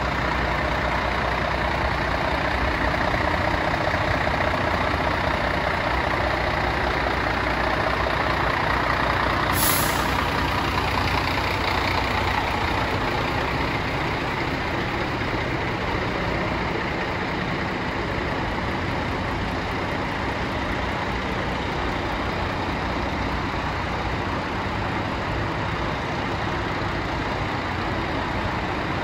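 Scania R114L 380's turbo-diesel straight-six idling steadily, heard from beside the truck. About ten seconds in comes one short, sharp hiss of compressed air released from the air system.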